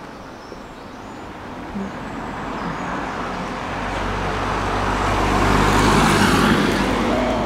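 A car driving past on the road, its tyre and engine noise building to its loudest about six seconds in, then starting to fade.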